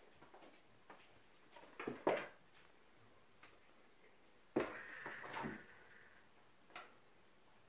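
A small ball is batted across a tile floor by a kitten, making a few light knocks and clatters. They are loudest about two seconds in and again around five seconds in, with a brief ringing tone with the second cluster.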